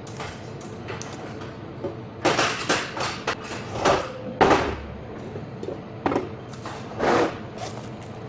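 A series of irregular knocks and clatters, about six in all, from roughly two seconds in until near the end, one of them leaving a brief ring, over a faint steady hum.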